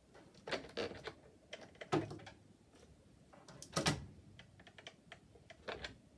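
Clicks, taps and clatter of a Greenworks 40V cordless chainsaw's bar and chain being handled and taken off on a wooden workbench. Scattered short knocks, the loudest about two and four seconds in.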